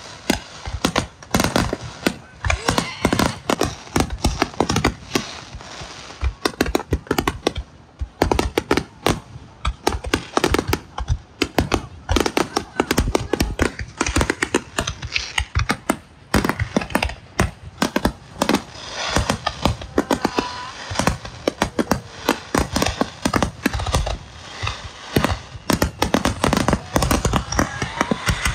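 Aerial fireworks display going off: a dense, continuous barrage of bangs and crackling, many shells bursting in quick succession with hardly a pause.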